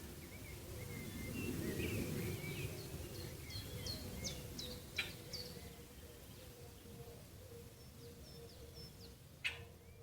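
Small birds chirping in quick runs of short, falling notes, with a soft low rush of background noise and two sharp clicks about halfway and near the end.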